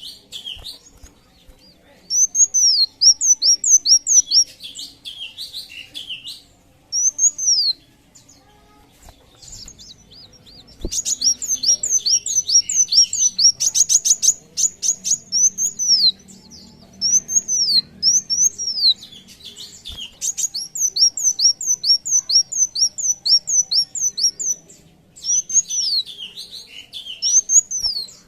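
Sunbird singing: phrases of rapidly repeated high, arched chirping notes lasting a few seconds each, separated by short pauses, with a fast rattling trill about halfway through.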